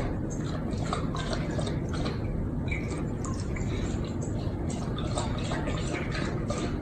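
Irregular small splashing and dripping sounds of water, many short ticks in quick succession over a steady low rumble.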